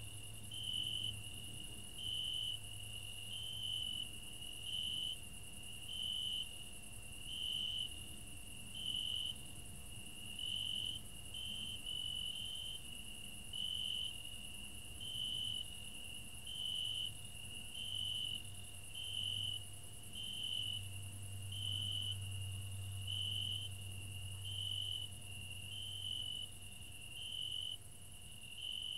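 Crickets chirping: a steady high trill with louder chirps at about one a second, over a faint low hum.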